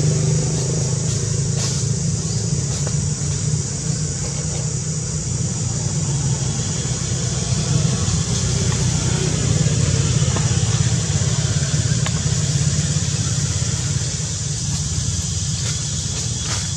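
A steady low motor drone with an even hiss above it, with a few faint ticks.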